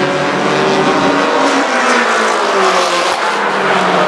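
Several mini stock race cars' small four-cylinder engines running on the oval at once, their pitches sliding up and down as the cars pass.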